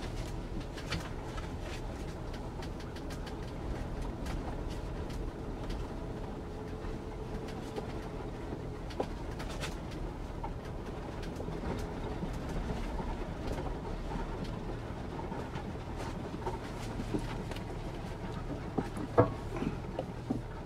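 Inside a Ford Bronco crawling over rough farm ground through high grass: a steady low engine and road rumble with scattered light ticks and knocks. One sharper knock comes near the end.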